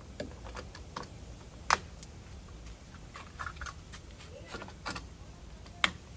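Plastic covers and access doors on Yakima Baseline roof-rack towers snapping shut: two sharp clicks, about two seconds in and near the end, among lighter taps and handling rustles.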